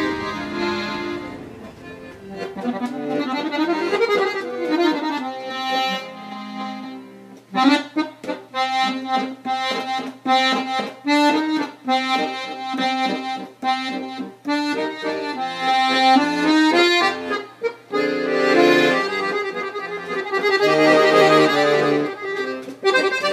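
Piano accordion playing a tune, with held notes and chords at first, then a faster passage of short notes.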